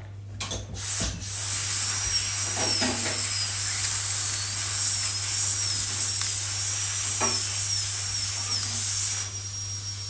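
Veterinary dental drill handpiece cutting through a small metal bell stuck on a cockatoo's tongue: a steady high whine over a loud hiss, starting about a second in, the whine dipping in pitch now and then as it bites. Near the end the hiss eases while the whine carries on.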